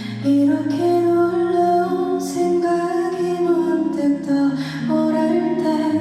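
Live music: a woman singing slow, long-held notes over a soft, steady accompaniment.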